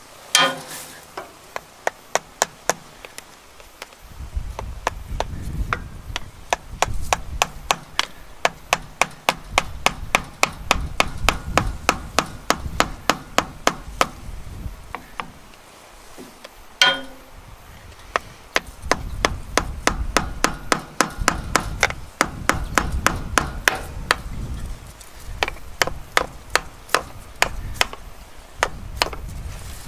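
Repeated hammer blows on metal, about two to three a second, as a screwdriver is punched into a stuck oil filter to turn it loose. Two harder strikes ring out, one near the start and one about halfway through, and a low rumble runs under the blows.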